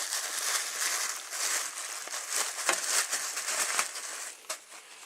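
Close rustling and scraping handling noise with many sharp clicks, dying down about four seconds in.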